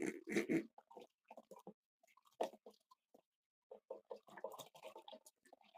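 Small pets bathing in a shallow bird bath, making a string of short, soft, irregular sounds that grow busier about four seconds in.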